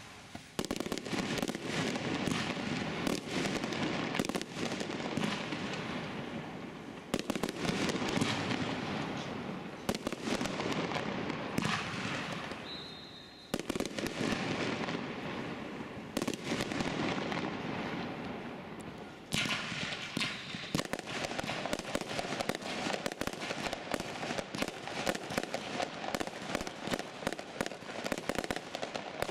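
Fireworks display: aerial shells and comets launching and bursting one after another, with a continuous stream of bangs and crackling. In the last third the reports come thick and fast as dense crackling.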